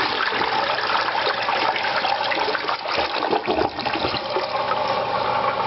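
UPC contractor-grade toilet flushing: a steady, full rush of water draining through the bowl.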